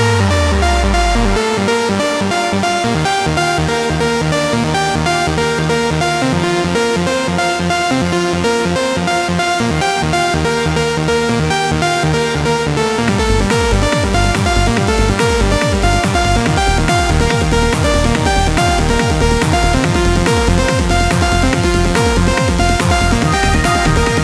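Electronic dance music with a steady beat. A falling bass sweep comes right at the start, and a heavy bass beat kicks in about halfway through.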